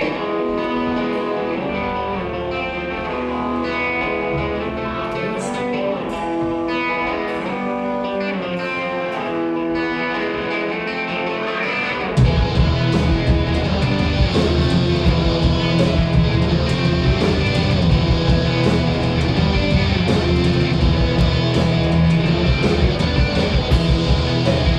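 Live punk-metal band: an electric guitar riff plays with little low end beneath it, then about twelve seconds in drums and bass come in and the full band plays loud and heavy.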